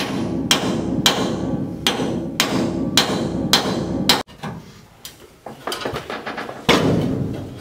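Pneumatic air hammer fitted with a punch bit, hammering on the rivets of a truck's leaf-spring hanger to drive them out of the frame. It runs in strong pulses about twice a second, cuts off sharply about four seconds in, then starts again for a shorter burst near the end.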